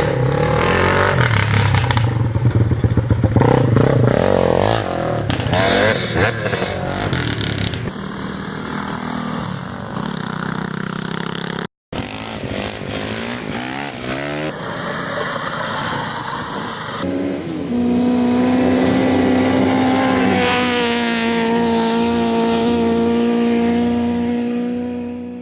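Engines running and revving in a series of short cut-together clips, with scraping and clattering. The last part is a steadier engine note held for several seconds.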